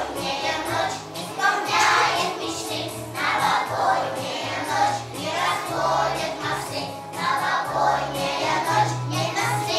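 A group of young children singing a song together over instrumental accompaniment with a steady bass line.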